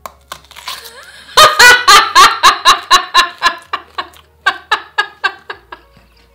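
A woman laughing hard: a quick run of loud ha-ha bursts starts about a second and a half in, then trails off into softer, more widely spaced chuckles.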